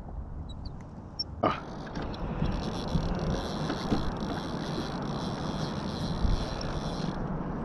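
Fishing reel's drag buzzing steadily as a hooked fish strips line off a trolling rod. It starts with a sharp knock about a second and a half in and cuts off suddenly near the end, over the low, steady rumble of the boat.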